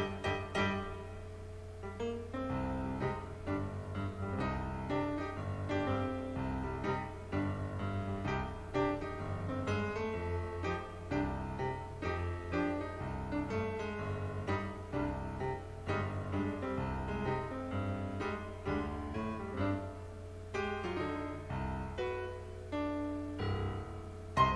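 Solo piano music, a lively stream of quick notes and chords, with a steady low hum beneath.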